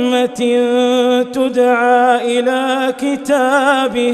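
A male Quran reciter's voice chanting in a long melodic line, holding a steady note with wavering ornaments and breaking off briefly a few times.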